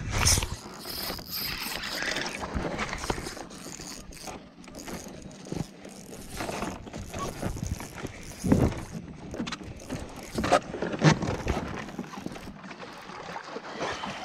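A bass being reeled in on a spinning rod and netted beside a fishing kayak: irregular splashing, knocks and scrapes against the hull and gear, with several loud knocks or splashes in the second half.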